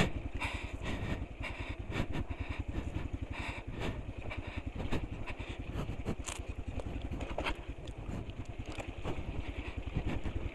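Motorcycle engine running steadily at low revs with a rapid putter, broken by occasional knocks and clatter as the bike rides over a rough road.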